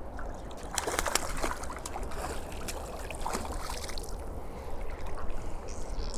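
River water sloshing and trickling, with a few sharp clicks and knocks, a cluster of them about a second in.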